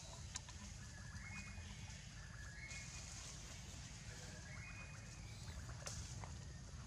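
A bird calling a short stepped phrase three times, a second or two apart, over a steady low rumble.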